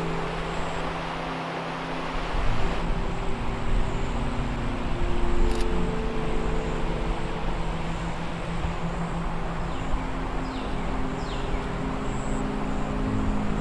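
Steady rush of creek water under a low drone of held tones that shift every few seconds, with a single sharp click partway through.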